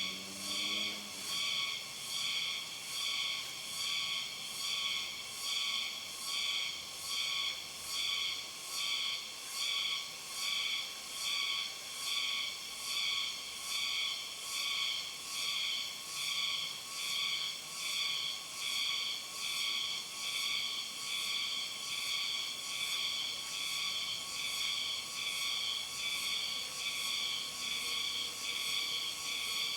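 A chorus of night insects, such as cicadas or crickets, keeps up a high-pitched, rhythmic trill that swells and fades about once a second.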